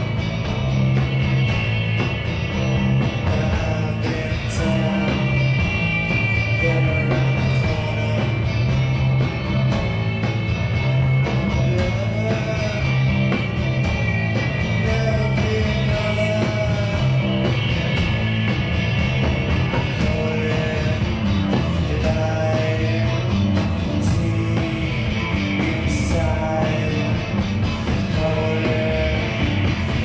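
Live indie/psychedelic rock band playing loudly: electric guitar, bass guitar and drums, with a singer.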